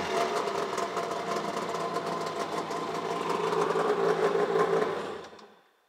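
1997 Tigershark Montego Deluxe jet ski's two-stroke engine idling steadily, then winding down and stopping near the end.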